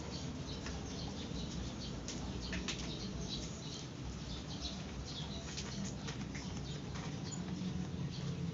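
A pile of newborn kittens shifting against each other: soft scattered rustling and faint, tiny squeaks, over a steady low hum.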